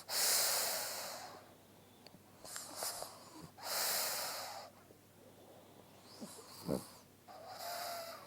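Sleeping pug snoring and breathing noisily: about four long, hissing breaths a couple of seconds apart, with a short snort past the middle and a whistling wheeze on the last breath.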